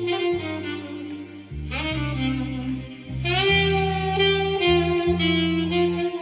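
Saxophone playing a slow, singing melody over an accompaniment with a held bass line. New phrases enter about a second and a half in, with an upward slide, and again about three seconds in.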